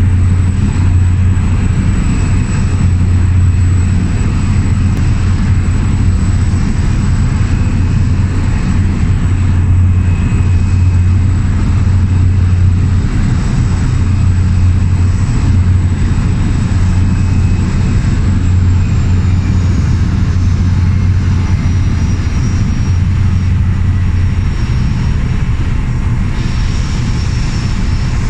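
Single-engine turbine DHC-3 Otter floatplane in flight, its engine and propeller making a steady low drone heard from inside the cabin. A thin high whine over the drone slides down in pitch about two-thirds of the way through as power is eased back on the landing approach.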